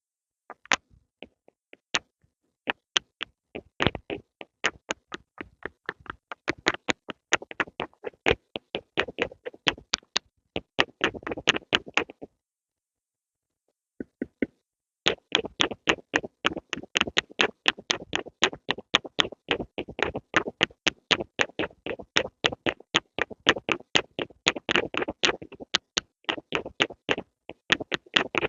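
Pencil making quick, sharp taps and strokes, several a second, stopping for about three seconds midway and then starting again.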